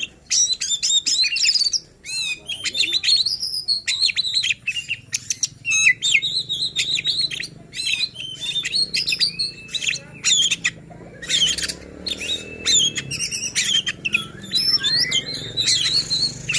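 Oriental magpie-robin (kacer) singing a fast, unbroken run of varied whistles, rising and falling sweeps and harsh chirps, with short pauses between phrases. This is the persistent, agitated song used to provoke other magpie-robins into singing.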